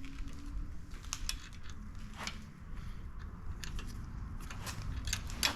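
Scattered light clicks and scrapes of an Allen wrench being worked at a hard-to-reach bolt in a steering stem, metal tool on metal parts, over a steady low hum.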